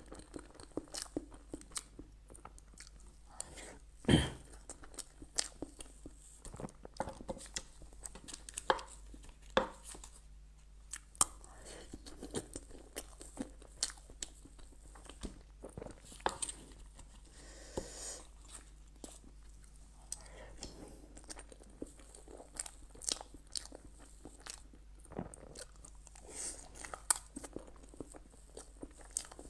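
Close-miked eating: a person biting and chewing crunchy food, with many sharp, irregular crunches between softer chewing, the loudest bite about four seconds in.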